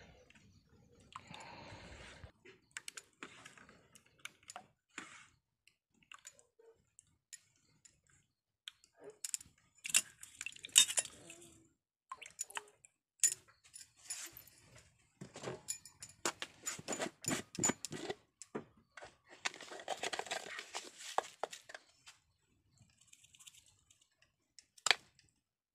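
Rice batter for chakuli pitha being mixed by hand in a vessel: irregular wet sloshing and squelching, with scattered sharp clinks and jingles.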